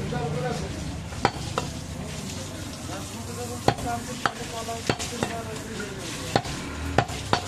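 Heavy butcher's cleaver chopping goat meat and bone on a wooden log chopping block: about nine sharp, irregularly spaced chops.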